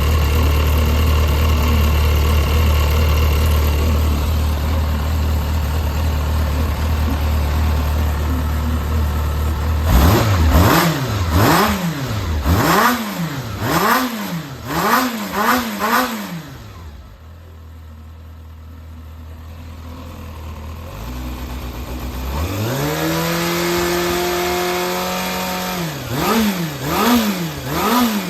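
Yamaha XJR400 (4HM) air-cooled inline-four engine idling steadily, then blipped up and down about six times in quick succession. After a short quieter spell it climbs to a held higher speed and is blipped again near the end. It runs with no abnormal noise, which the seller takes as the sign of a healthy, high-compression engine.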